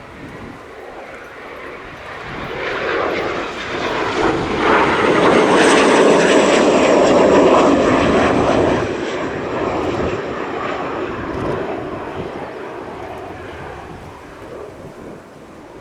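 A military jet passing close by. Its engine roar swells over a few seconds and peaks about halfway through, carrying a high whine that slides down in pitch as it goes past, then fades away.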